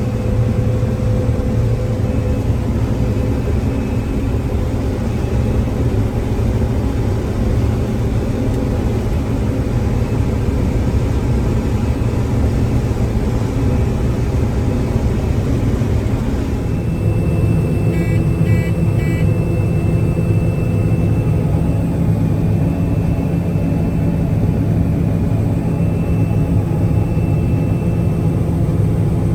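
Combine harvester running steadily while harvesting corn. About two-thirds through, the low machine hum gets heavier, a steady high tone comes in, and a few short beeps sound.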